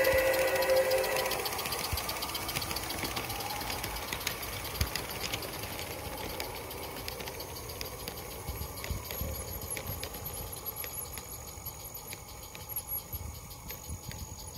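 A garden-scale live-steam train passing and moving away: a whistle trails off in the first second or so, then a quick, even ticking of the running train fades steadily as the cars roll off down the line.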